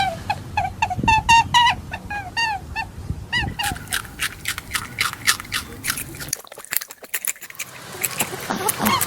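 Short high peeping calls, about three a second, for the first few seconds, then a rapid run of crisp crunching clicks from a rabbit chewing its food, which fades briefly and resumes near the end.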